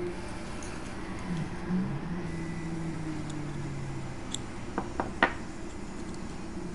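Steady low room hum with a few small, sharp clicks of pliers against thin etched sheet-metal model parts, grouped between about four and five seconds in; the loudest comes a little past five seconds.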